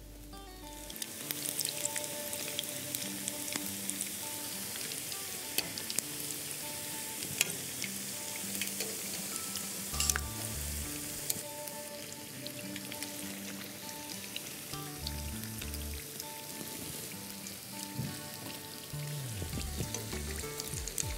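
Rolled corn-tortilla flautas deep-frying in hot vegetable oil in a skillet: a steady sizzle with frequent sharp crackles and pops, starting about a second in, over light background music.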